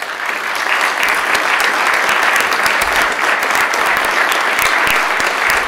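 Chamber full of legislators and gallery visitors applauding: many people clapping together, breaking out suddenly and holding steady.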